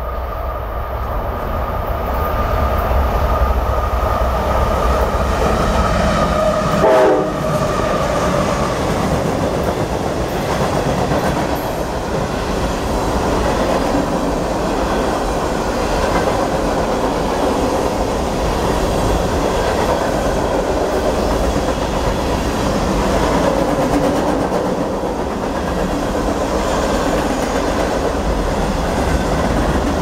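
A Nathan K5LA five-chime air horn on a CSX GE AC44CW freight locomotive sounds a long blast, its chord falling in pitch about seven seconds in as the locomotive goes by. Then a mixed freight train's cars roll past with a steady rumble and rail clatter.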